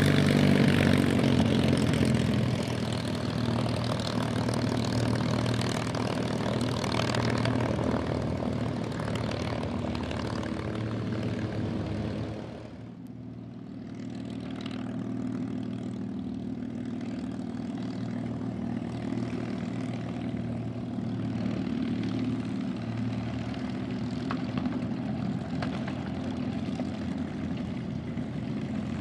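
P-51 Mustang's Merlin V-12 engine running steadily with the propeller turning, heard close up as a low drone. About halfway through, the sound drops off suddenly and gives way to another Merlin-engined P-51 Mustang taxiing, a little quieter.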